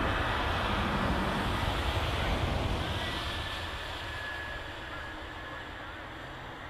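Embraer Legacy 450's twin Honeywell HTF7500E turbofans running as the jet rolls out after landing: a steady jet rush that fades gradually as the aircraft moves away, with a faint thin whine partway through.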